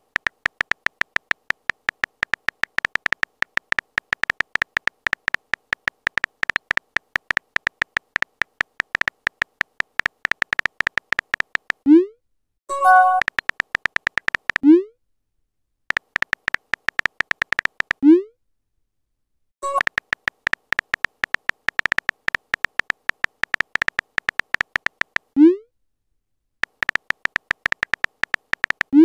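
Rapid, even clicking of a texting app's keyboard sound effect in long runs as messages are typed, broken by short rising pops as each message is sent, about five times, and a couple of brief chimes as new messages come up.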